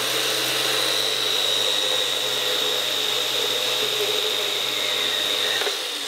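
Parkside portable band saw running with a steady high whine as it cuts through a clamped metal rod. Near the end the sound drops and the motor winds down.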